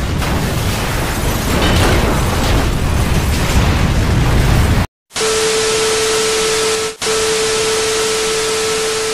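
Small camera drone falling: a loud, even rushing noise for about five seconds that cuts off abruptly at the crash. Then a steady mid-pitched tone over hiss, broken once briefly, as the downed drone's camera lies on the ground.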